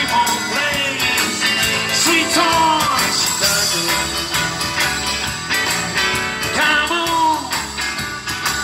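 Live blues band playing a blues standard on electric guitars, bass and drums, with a lead melody line that bends in pitch over the backing.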